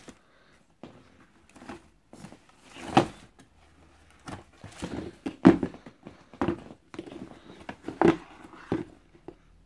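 Cardboard shoe box being handled by hand: a series of dull knocks and thumps as the box and its lid are moved about, the loudest about three seconds in, with softer handling noise between them.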